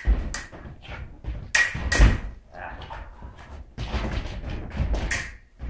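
Darts striking a dartboard: a series of sharp knocks and thuds, the loudest two close together about two seconds in.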